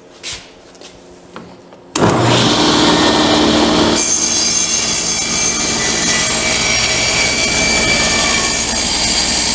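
Table saw started about two seconds in, running steadily, then from about four seconds in its blade crosscuts through a thick glued-up board of wood strips pushed on a sled, trimming the end square.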